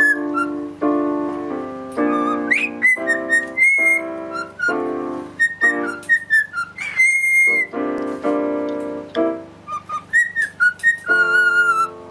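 A cockatiel whistles a tune in short high notes and brief upward slides, sometimes holding a note, over a keyboard piano played in chords.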